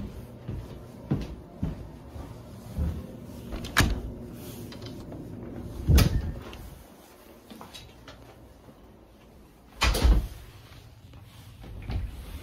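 Footsteps and rustling of a jacket against a handheld phone, with several knocks and thumps of a building door being opened and closed; the loudest thumps come about six and ten seconds in.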